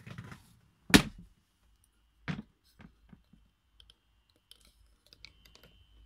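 Engine-room access door being unlatched and opened by hand: a sharp knock about a second in, a softer knock a little later, then scattered light clicks.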